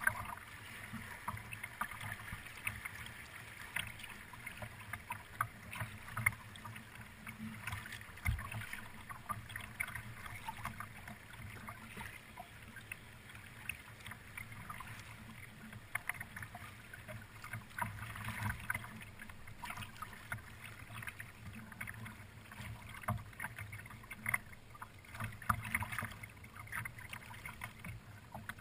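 River rapids: water rushing and splashing against the bow of a kayak, a steady rush with many small irregular splashes and slaps of water on the hull.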